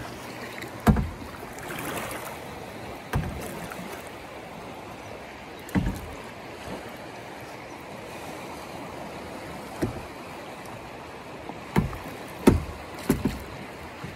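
Steady rush of river current around a plastic kayak, with about seven short, sharp knocks and thumps on the kayak, the loudest about a second in and two seconds from the end.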